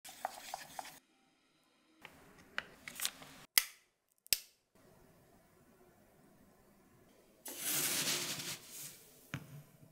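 Wooden stick ticking against a small metal ladle as the dalgona mix is stirred. Then two sharp snaps, the loudest sounds, as a hardened dalgona (honeycomb sugar candy) disc is broken by hand, about three-quarters of a second apart. Near the end comes a brief grainy rasp as a wooden spoon scoops granulated sugar from a plastic jar.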